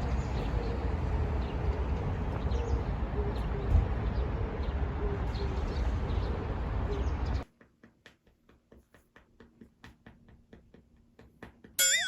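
A steady rushing background noise with a bird cooing over and over. It cuts off suddenly about seven seconds in and gives way to quiet with faint clicks. Near the end a wobbling, rising cartoon-style 'boing' sound effect comes in.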